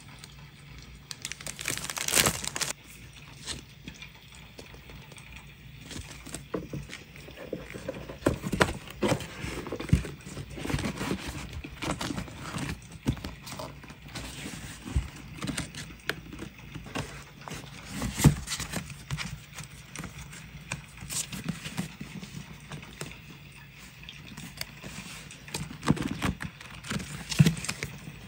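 Paper being handled for a scrapbook collage: irregular rustling and crinkling of paper, with scattered light taps and sharper clicks.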